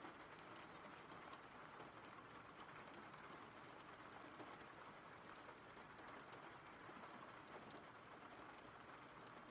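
Faint, steady rain: an even patter with scattered light drop ticks.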